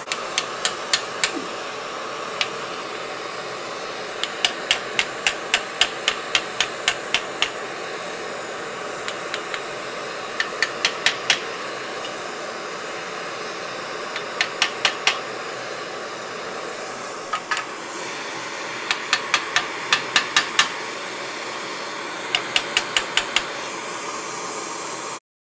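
Hammer striking a heavy chisel on red-hot Damascus steel held in a vise: short quick runs of sharp metallic strikes, about four to five a second, with pauses between runs, carving the ears. Underneath runs the steady hiss of a gas heating torch, and everything cuts off suddenly near the end.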